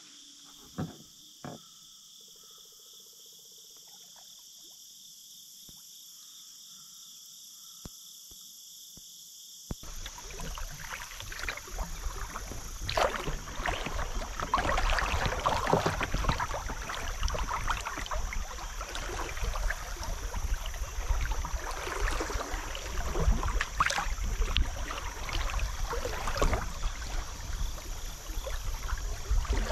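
Steady high insect chirring with a few faint clicks, then, about a third of the way in, a sudden switch to loud rushing, splashing water along a kayak's bow as it runs a fast, shallow riffle, with a low rumble underneath.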